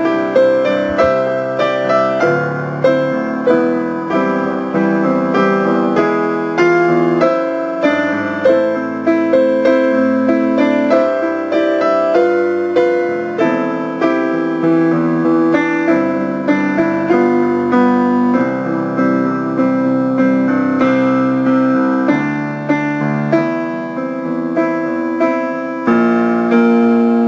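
Piano-sound keyboard playing the baritone part of a choral song as a rehearsal track: a steady, moderate-tempo line of struck notes over chords, each note fading after it is struck.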